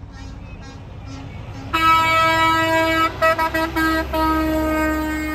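Semi truck air horn blasting: a long blast about a second and a half in, a few quick toots, then another long held blast. A diesel engine rumbles low underneath.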